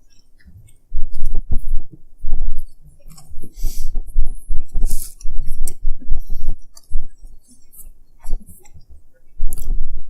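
Close-miked chewing of a steak-and-cheese sandwich on soft bread: loud, irregular mouth sounds starting about a second in, with occasional sharp crackles.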